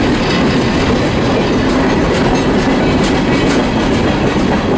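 Norfolk Southern manifest freight train's cars rolling past close by: steady loud rumble of steel wheels on rail, with faint clicks over the rail joints.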